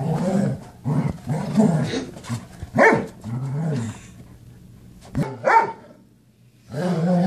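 Large black dog growling and barking in rough play: a run of short growls, with sharper barks about three seconds in and again about five and a half seconds in.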